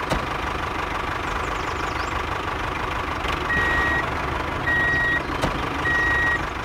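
Tractor engine idling steadily while a reversing alarm beeps three times, about a second apart, starting about halfway through, as the tractor backs up.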